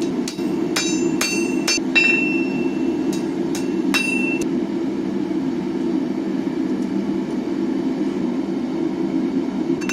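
Hammer blows on steel at an anvil, about eight strikes in the first four seconds, several leaving a high metallic ring; then the hammering stops and only a steady low rushing noise goes on.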